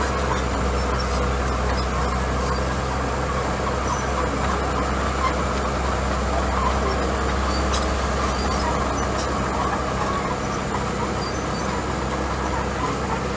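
Small crawler bulldozer's diesel engine running steadily under load as its blade pushes a pile of gravel.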